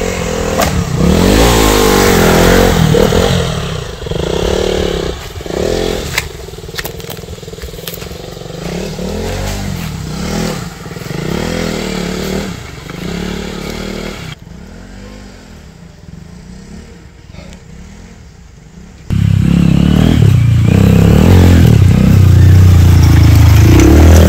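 Off-road motorcycle engines revving up and down over and over, the revs rising and falling about once a second as riders work through a tricky trail section. The sound drops away for a few seconds, then cuts in suddenly much louder and deeper about nineteen seconds in.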